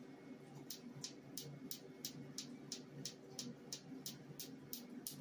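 Q-switched Nd:YAG tattoo-removal laser firing pulses into the skin: faint, sharp snaps at an even rate of about three a second, starting under a second in, over a steady low hum.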